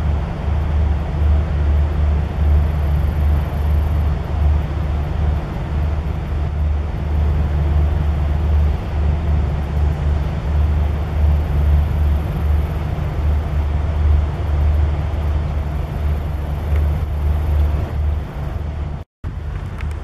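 Steady low rumble of distant highway traffic, with a brief dropout near the end.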